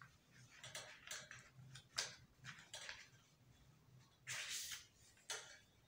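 Faint, scattered rustles and light taps of a paper pattern sheet being handled and opened up, with a longer rustle about four seconds in.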